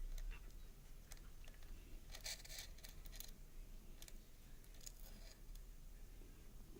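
Faint clicks and scrapes of a small Phillips screwdriver and tiny screws against a MacBook Pro's aluminium bottom case as the screws are set in, with a short scratchy cluster about two seconds in.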